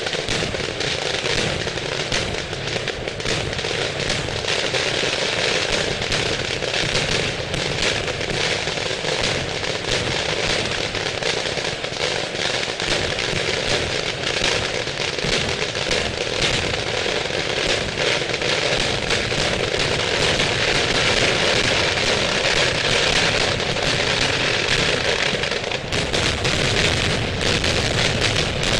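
Fireworks display: a dense, unbroken barrage of firecrackers going off in rapid succession at ground level, with aerial shells bursting, a continuous run of cracks and bangs without pause.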